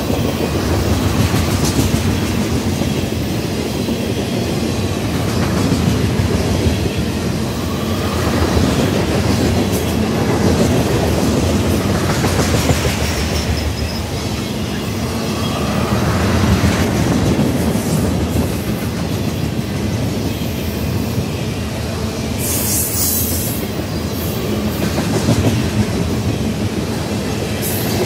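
Freight train of ethanol tank cars rolling past close by: a steady rumble of steel wheels on rail with clickety-clack over the joints. The sound swells every few seconds as each car's wheel sets go by, with a brief high squeal about three-quarters of the way through.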